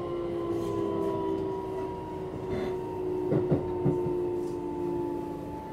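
Keikyu 1000 series electric train running, heard from on board: a steady traction motor whine, slowly falling in pitch, over the rumble of the wheels. About three and a half seconds in come a few knocks as the wheels pass over rail joints.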